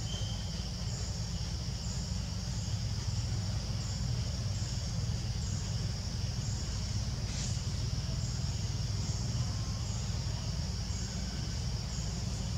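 Insects shrilling in a steady high chorus that pulses about twice a second, over a continuous low rumble.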